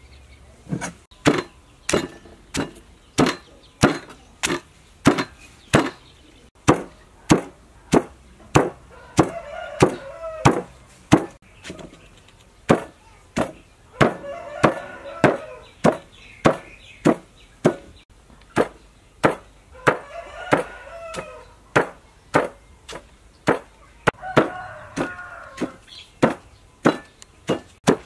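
Pestle pounding garlic, lemongrass, turmeric and herbs into a paste in a stone mortar: a steady rhythm of sharp thuds, a little under two a second, starting about a second in.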